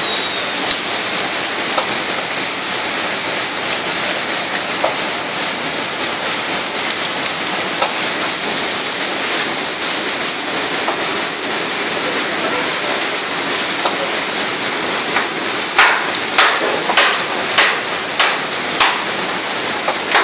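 Semi-automatic paper dona-and-plate making machine running with a steady rushing noise. Near the end comes a regular run of about six or seven sharp clacks, nearly two a second.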